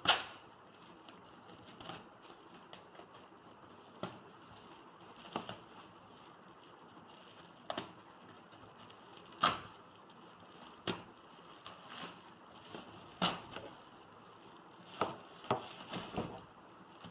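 Parcel being opened and its packaging handled: scattered short clicks and knocks at irregular intervals, the loudest at the very start and several close together near the end.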